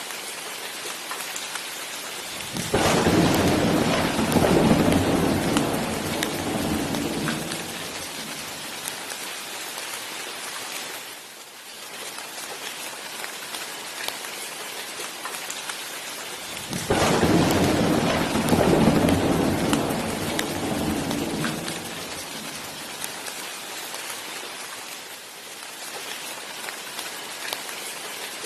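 Steady rain with two rolls of thunder, the first a few seconds in and the second about halfway through, each rumbling for about five seconds before fading.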